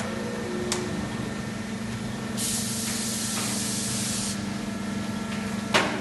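Steady hum of an injection moulding work cell with a robot arm. A loud hiss runs for about two seconds midway, and a sharp knock comes near the end.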